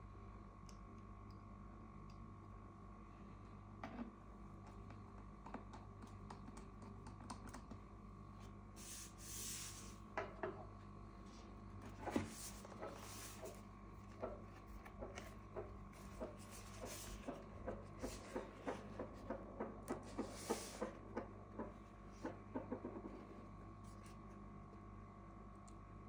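A MacBook Air aluminium laptop being handled on a table: a few light knocks and sliding swishes as it is moved and picked up, then a quick run of small clicks and taps.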